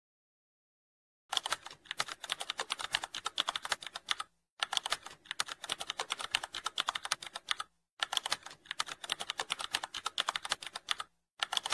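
Fast computer-keyboard typing clicks, in runs of about three seconds broken by short pauses, starting after about a second of silence.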